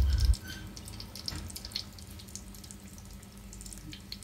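Shrimp paste frying in hot oil in a wok: a steady sizzle with scattered small crackles. A loud low rumble stops about a third of a second in.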